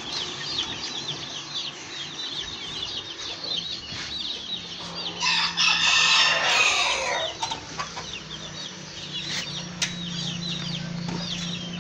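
Chickens clucking with a constant high peeping of chicks, and a rooster crowing once, loud and about two seconds long, about five seconds in.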